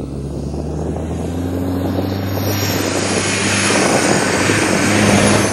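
Cummins four-cylinder turbo diesel in a 1993 Ford Bronco running steadily under load as the truck drives across sand, growing louder as it approaches.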